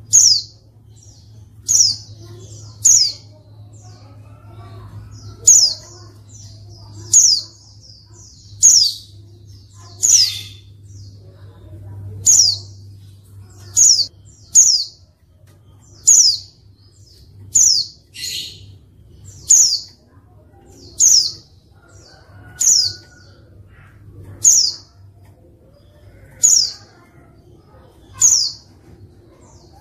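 Female white-eye (pleci) giving short, sharp, high chirps that slide downward, one about every second and a half, with an occasional rougher call among them. It is the female's call that is used to rouse male white-eyes into answering and singing.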